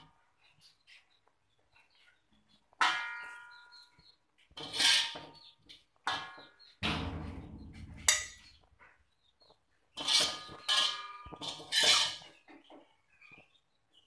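A spatula scraping and knocking against a metal wok while chicken is served out of it: a series of separate scrapes and knocks, several with a brief metallic ring.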